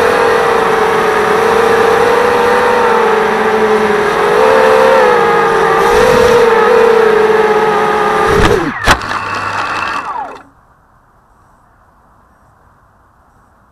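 Drone's electric motors and propellers whining steadily, the pitch wavering slightly, then winding down in a quick falling sweep about eight and a half seconds in and cutting off, leaving only faint hiss.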